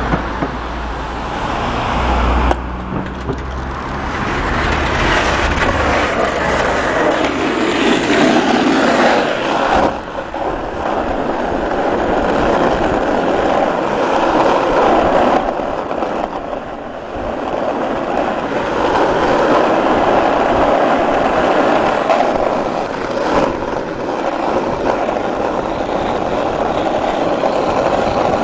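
Skateboard wheels rolling over rough asphalt: a continuous gritty rolling noise that shifts abruptly a few times. A car passes in the first few seconds.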